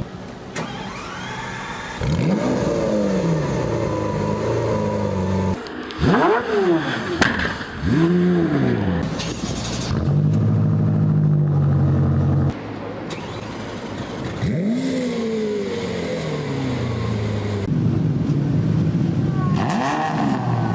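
High-performance car engines started and revved: about five sharp rev blips that rise and fall back, settling to a steady idle between them, with sudden changes from one engine to the next.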